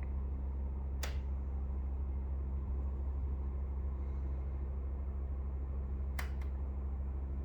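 Brand-new Pioneer 9000 BTU mini split running with a steady low hum, and sharp clicks from the unit: one about a second in and a quick pair near the end. The owner takes the clicking as a fault in the new unit.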